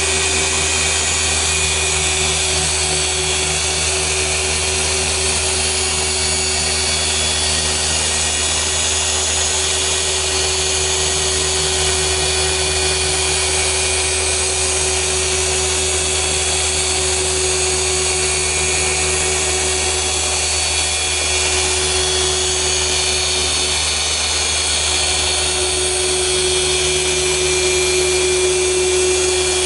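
Rupes LHR 15 random orbital car polisher running steadily with a foam pad working over car paint, a constant motor whine with pad hiss. The tone rises slightly and grows a little louder near the end.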